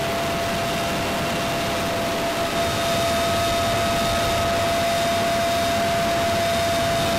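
UH-1Y Venom helicopter's engines and rotor heard from inside the open cabin: a steady rush of noise with a thin, high steady whine. It gets slightly louder about two and a half seconds in.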